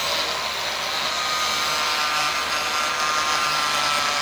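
Angle grinder running steadily at full speed, its cutting disc grinding into a plastic computer keyboard.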